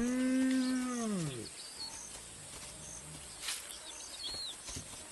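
Spotted hyena giving one long, low call about a second and a half long that rises, holds and then falls away. Faint bird chirps follow.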